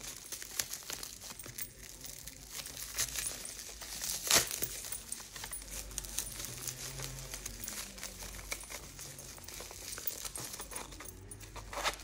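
Plastic bubble wrap crinkling and rustling as it is unwrapped by hand from small pens, with irregular crackles and one sharper crackle about four seconds in.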